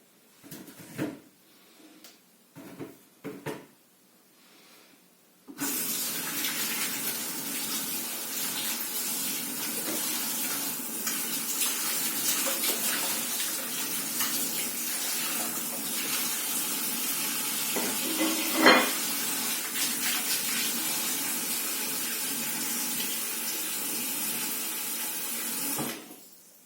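A few light kitchen clatters, then a kitchen tap is turned on and water runs steadily into the sink for about twenty seconds as vegetables are washed under it. There is one louder knock in the sink partway through. The water stops just before the end.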